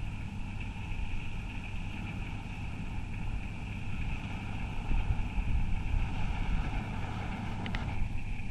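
Bizon BS Z110 hydrostatic combine harvester running while it harvests: a steady mechanical drone with a steady high whine over it. Wind buffets the microphone.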